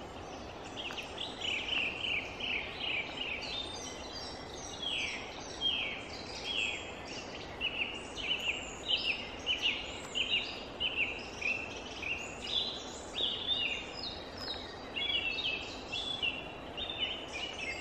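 Forest birdsong: several birds singing at once, a dense run of short chirps and down-slurred whistled notes, over a faint steady background rush.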